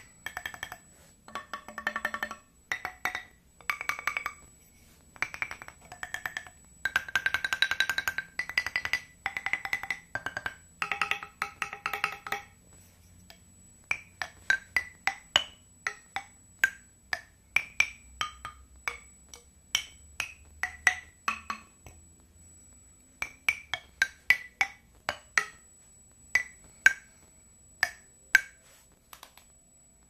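Loose wooden bars of different lengths, laid side by side like a makeshift xylophone, struck one after another. Each strike gives a short, hollow knock at its own pitch. Quick runs of notes come in the first half, then single notes spaced about a second apart.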